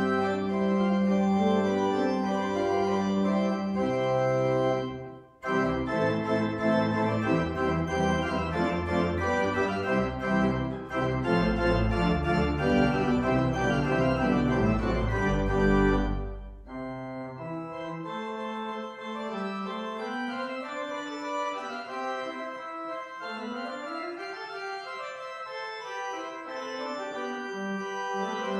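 Three-manual church organ playing loud, full sustained chords over deep pedal bass notes, with a brief break about five seconds in. A little past halfway the full sound cuts off and a softer, lighter registration carries on with moving melodic lines and no deep bass.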